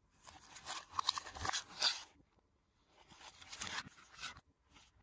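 Crinkling and rustling of a vacuum-sealed plastic pack of meat being handled and scraped against a cardboard box, in two bursts of about two seconds each and a short one near the end.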